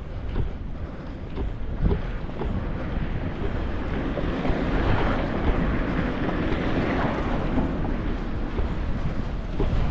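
Wind buffeting the microphone with a steady rumble, while a car passes close by on the street, its tyre and engine noise swelling in the middle and fading toward the end.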